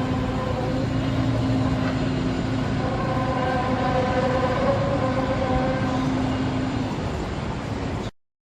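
A steady drone: several held tones over a rumbling noise, heard as a mysterious sound in the sky. It cuts off suddenly about eight seconds in.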